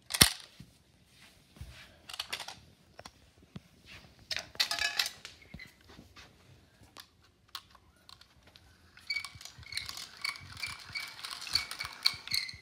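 A sharp click just after the start, then scattered small clicks. From about nine seconds in, the battery buggy runs, its small electric motor driving the metal axle rods with a repeating high squeak from the thin fasteners the rods turn in.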